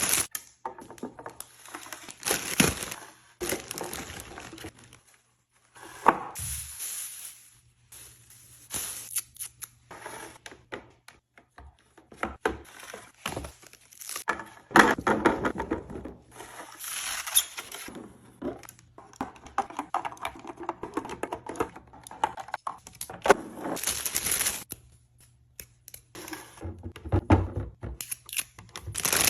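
Plastic packaging crinkling and tearing, with containers knocking and thunking as food is put away in a refrigerator, in irregular bursts with short pauses between them.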